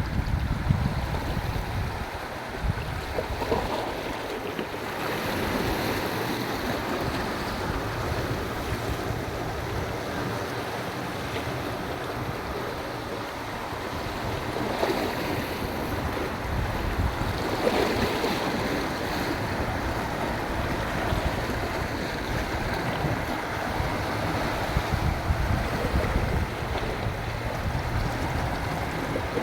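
Sea waves washing in and out on the shore in a steady rush that swells and eases, with wind rumbling on the microphone.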